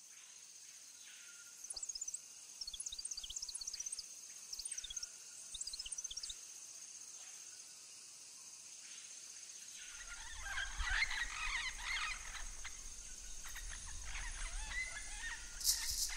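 Rainforest ambience: a steady high insect drone with several short bouts of quick chirping calls. About ten seconds in, music with a low bass comes in under more chirping.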